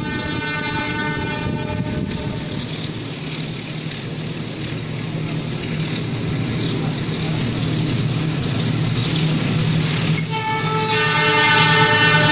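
Diesel-electric locomotive's air horn sounding the warning signal: one long blast ends about two seconds in, and a second begins about ten seconds in. Underneath, the locomotive's low engine rumble grows steadily louder as the train approaches.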